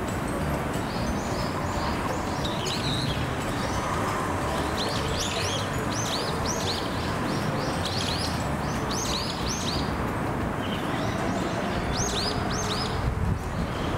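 Small songbirds chirping in many quick, short, falling calls, clustered in runs, over a steady low background noise.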